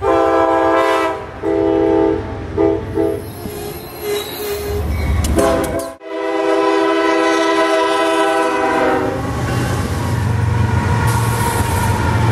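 Train horns blowing: one long blast followed by several shorter ones, then, after a sudden cut about six seconds in, another horn held for about three seconds. In the last few seconds a diesel locomotive passes close by with a low, steady engine rumble.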